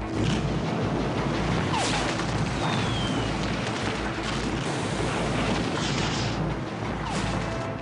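Battle sounds of gunfire and explosions: a dense, steady din with scattered sharp shots and a short falling whistle about three seconds in.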